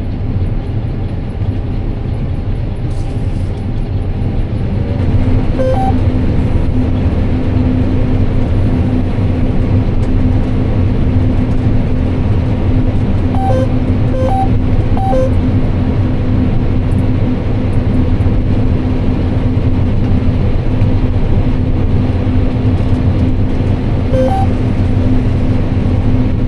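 Combine harvester running steadily with a low drone that gets louder about five seconds in. Short electronic beeps sound several times.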